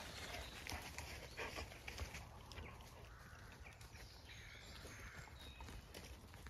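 Faint rustling and crackling of dry leaf litter and sticks as dogs move about and chew, with scattered soft clicks over a low steady rumble.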